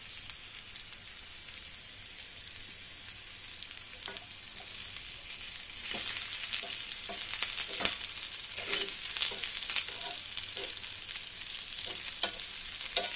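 Bitter gourd and onion pieces sizzling in hot oil in a kadai, stirred with a steel spoon that scrapes and clinks against the pan. The sizzle grows louder about six seconds in.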